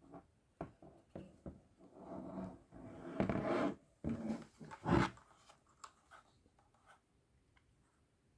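Keys being typed on a Trust GXT 865 Asta mechanical keyboard with linear red switches: irregular clacks, a dense fast run of keystrokes in the middle few seconds, then only a few scattered faint taps near the end.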